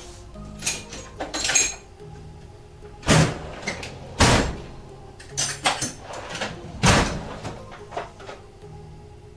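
Steel roll-away tool chest drawers sliding open and shut, with tools clattering inside: several sharp clatters, the loudest about three, four and seven seconds in. Background music plays underneath.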